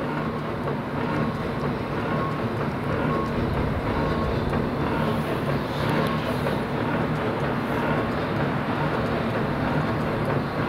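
A crane's engine running steadily at constant speed, a low even hum, while it holds a locomotive boiler on its hook.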